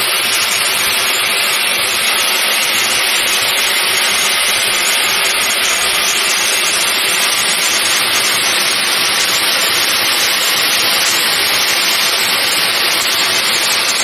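Steady hiss of heated metal balls in melting ice, the meltwater boiling and steaming against the hot metal.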